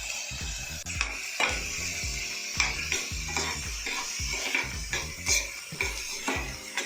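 A spoon stirring and scraping soaked rice in a pan of hot ghee as it fries, with a steady sizzle and a scrape or knock against the pan about twice a second.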